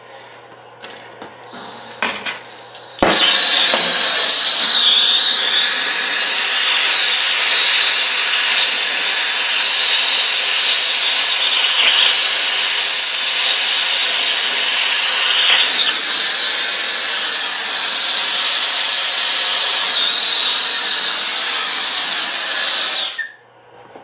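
Handheld gas torch burning with a steady hiss and a high whistle, heating an aluminium frame corner to melt brazing rod into a crack. It comes on abruptly about three seconds in and cuts off near the end.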